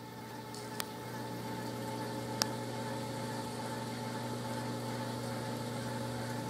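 Steady electric hum of an aquarium pump or powerhead running, with two brief sharp clicks about one and two and a half seconds in.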